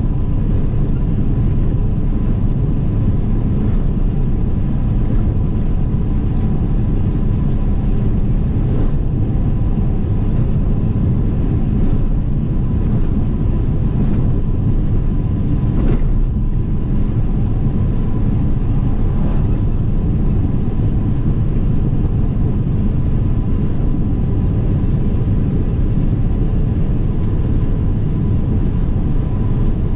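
Steady low road and engine rumble of a car driving along a highway, picked up by a dashcam in the cabin, with a faint steady whine and a handful of light ticks in the middle.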